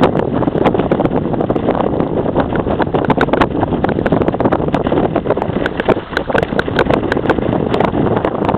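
Wind buffeting the microphone over choppy waves slapping and splashing against a kayak's hull, with frequent short, sharp splashes at irregular moments.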